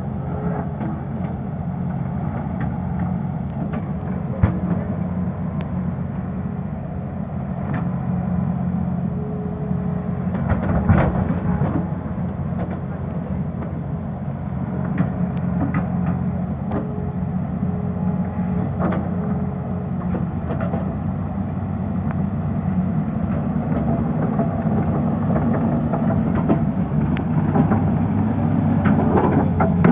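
Tata Hitachi excavator's diesel engine running steadily under work, with a few sharp knocks.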